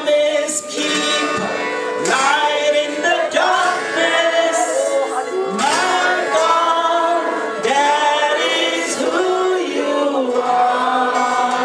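Worship song: men and women singing together over acoustic guitar accompaniment, in sustained phrases with sliding, held notes.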